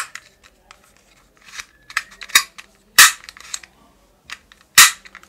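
Green plastic ball-bullet toy pistol being handled and cocked by its pull rod: a series of sharp plastic clicks and snaps, the loudest about three seconds in and near the end.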